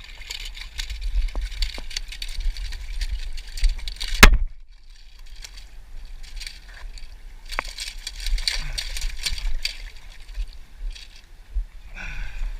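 Gusting wind buffeting the microphone over the wash of water. About four seconds in there is one sharp, loud knock, followed by a second of near silence, before the wind and water noise comes back.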